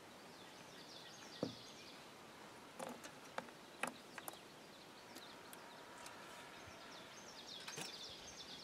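Faint outdoor ambience with small birds chirping at the start and again near the end. A handful of short clicks and taps come from a fishing rod and spinning reel being handled.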